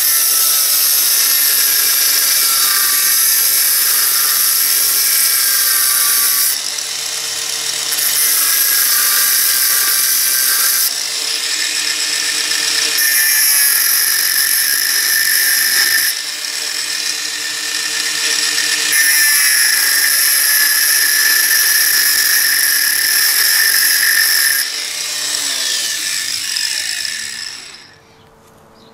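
Angle grinder with a thin cut-off disc cutting a lengthwise groove into the steel thread of an old head bolt: a loud, high whine in several passes, easing briefly between them. Near the end it is switched off and its pitch falls as the disc winds down to a stop.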